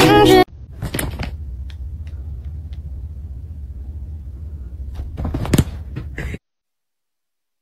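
A pop song cuts off abruptly at the start. It gives way to a low, steady handling rumble from a phone recording, with a few soft knocks, the loudest about five and a half seconds in. The sound then drops to dead silence a little after six seconds.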